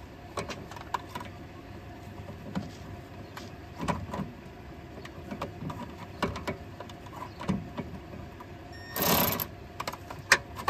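Scattered metal clicks and taps of a socket, extension and cordless ratchet being worked onto a nut in a car's steering linkage, with a brief burst of motor whir about nine seconds in as the cordless Milwaukee tool is triggered.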